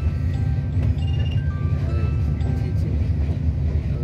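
A light melody of short, high notes plays over the steady low rumble of a moving train coach.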